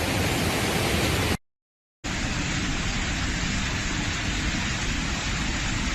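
Steady, dense rush of heavy rain and water, broken by about half a second of dead silence a second and a half in, then going on as before.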